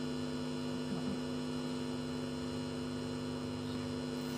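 Steady electrical mains hum with a stack of overtones, holding one even level.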